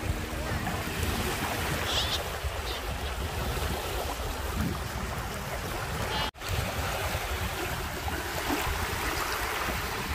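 Wind buffeting the microphone over small waves washing on a reservoir shore, a steady rumbling hiss. The sound cuts out for an instant about six seconds in.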